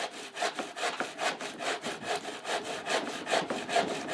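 Hand saw cutting through wood in steady back-and-forth strokes, about two to three strokes a second.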